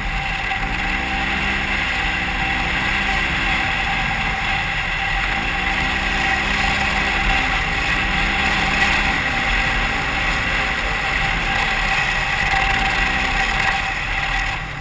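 Polaris RZR XP 1000 side-by-side's twin-cylinder engine driving hard across sand, its pitch rising and falling several times as the throttle comes on and off, over a steady rush of wind and driving noise in the open cab.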